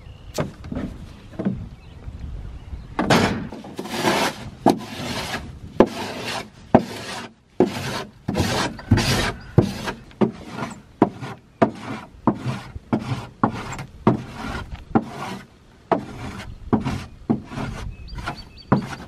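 Old bedding being scraped and scooped by hand out of the plastic nesting compartment of an Omlet Eglu chicken coop: a long run of short scraping strokes, about one or two a second.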